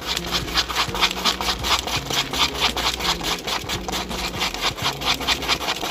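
Wooden chopsticks whipping sticky natto (fermented soybeans) round a cup: quick, even, scraping stirring strokes, about four or five a second.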